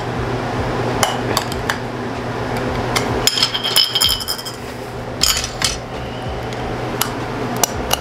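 Stainless steel espresso filter baskets clinking and knocking against each other and the portafilter as they are handled and fitted. There are a dozen or so separate metallic clicks and knocks, and one brief metal ring after about three seconds.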